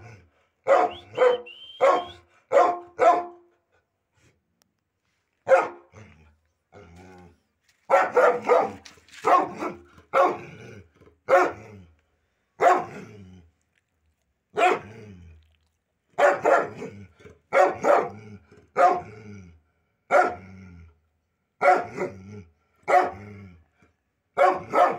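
A dog barking repeatedly: short, sharp barks, some single and some in quick runs of two or three, broken by pauses of a second or two.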